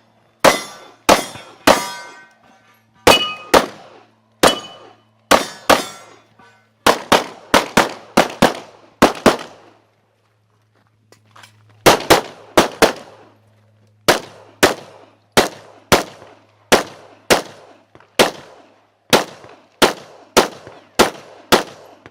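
Rapid pistol fire from a ZEV ISI Speedgun competition pistol: dozens of shots in quick pairs and strings, with a pause of about two seconds midway. Some shots leave a short metallic ringing tone after them.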